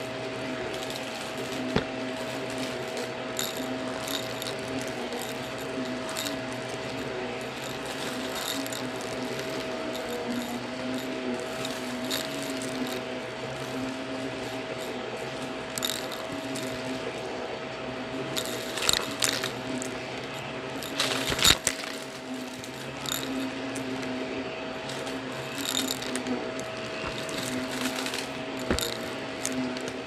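Blue bagless upright vacuum cleaner running steadily on carpet, its motor giving a constant hum, with scattered crunchy crackles and clicks of debris being sucked up; a burst of louder crackles comes about two-thirds of the way in.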